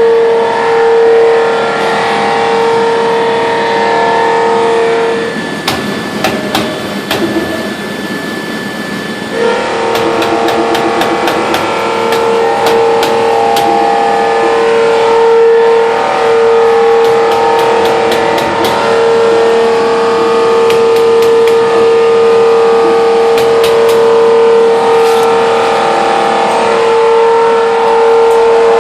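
Trumpf TC500 CNC punch press running while it punches thin aluminium sheet: a steady whine with several pitches, cut by quick runs of sharp punch strikes. The whine drops out for a few seconds about a fifth of the way in, leaving a quieter stretch of rapid clicking.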